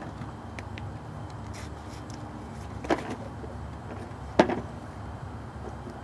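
A toddler's blue plastic wheeled toy knocking against stone patio pavers, two sharp knocks about three and four and a half seconds in, the second louder, over a steady low rumble.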